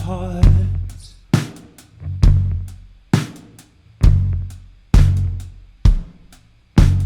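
Live band music with a drum kit playing a slow, heavy beat: a hard hit about every second, each ringing out over a low bass, with lighter cymbal and snare strokes between.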